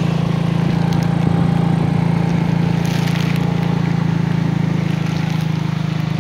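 A vehicle's engine running with a steady, even hum while the vehicle travels along a rough road.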